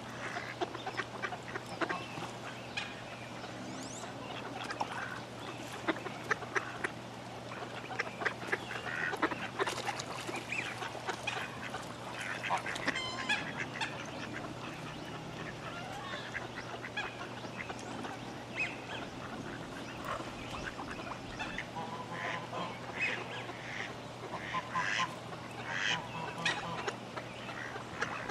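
Pond ambience of geese honking and ducks quacking: many overlapping calls throughout, over a steady low hum.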